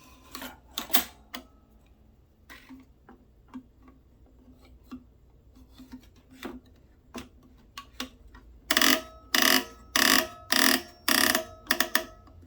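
Kenmore 158.1703 sewing machine with its 36149 monogrammer attachment being handled: scattered light clicks, then about two-thirds of the way in a run of six loud, even mechanical clunks roughly half a second apart.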